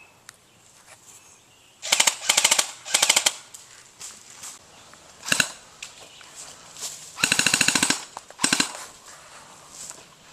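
Airsoft guns firing in rapid bursts of sharp clicking shots: three short bursts about two seconds in, a lone shot near the middle, then a longer burst about seven seconds in and one more short burst after it.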